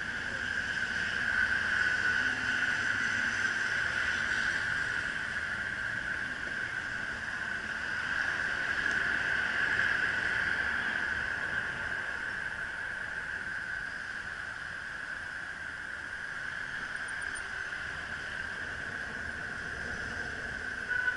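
Electric bicycle's motor whining steadily as it climbs a steep hill, over a bed of traffic and road noise. The whine swells about two seconds in and again around eight to ten seconds.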